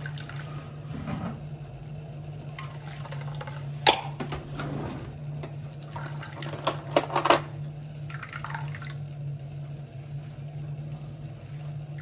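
Blended tigernut and ginger drink being strained through a cloth bag into a container, liquid trickling and splashing, with a sharp clink of dishes about four seconds in and a quick run of three or four clinks around seven seconds in. A steady low hum runs underneath.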